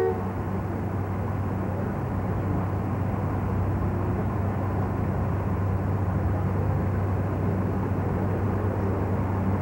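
Eight-wheeled armoured personnel carrier's engine idling: a steady low drone under a wash of outdoor noise.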